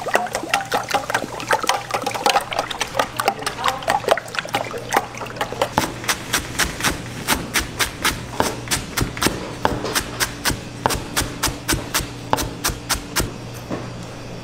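Raw eggs being beaten in a stainless steel pan with quick sloshing strokes, then a chef's knife chopping chives on a plastic cutting board in rapid even strokes, about four or five a second.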